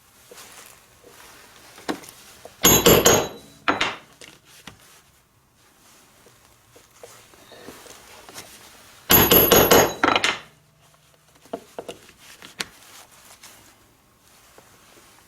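A leather stitching punch being struck with a mallet to drive holes through leather: two bursts of several quick blows about six seconds apart, each with a brief metallic ring. Fainter knocks of the tool being set down and repositioned fall between them.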